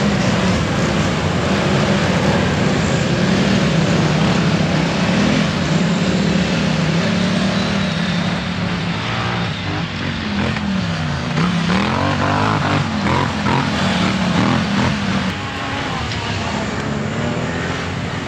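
ATV engine running hard, its revs rising and falling as it is worked along the trail, with a few quick drops and climbs in pitch in the middle.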